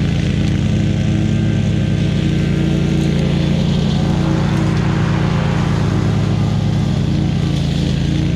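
Small petrol engine of lawn equipment running steadily at a constant high speed, with no change in pitch.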